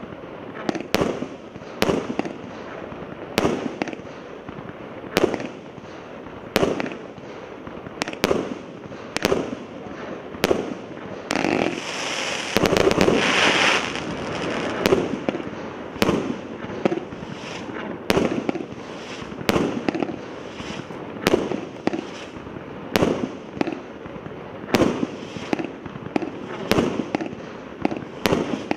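A 300-shot fireworks cake firing its shots in sequence, with a bang about once a second as the shells burst overhead. About halfway through, a louder stretch of dense hissing crackle comes from a glittering crackling-star effect.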